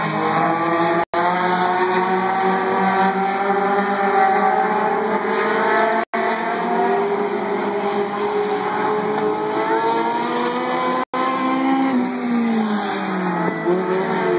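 Several dirt-track stock car engines running together as the cars circle the oval, their pitches rising and falling as they pass. The sound drops out for an instant three times.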